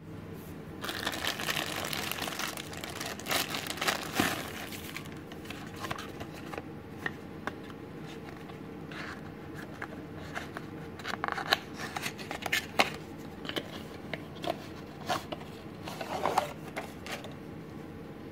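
Clear plastic wrapping crinkling as it is pulled off a gift box for the first few seconds, then scattered clicks and short rustles as the black pen box is handled and turned over.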